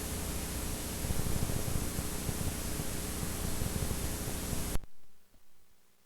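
VHS tape playback static: a steady, loud hiss with a low rumble and hum underneath. It cuts off suddenly near the end, followed by a couple of faint low thumps.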